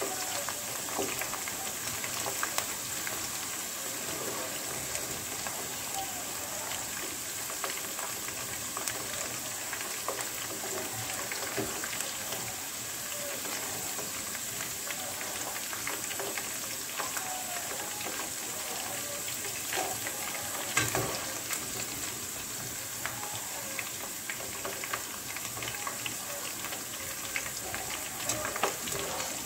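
Vegetables frying in a pan of hot oil on a gas stove: a steady sizzling hiss with scattered crackles and pops, and a sharper knock about two-thirds of the way through.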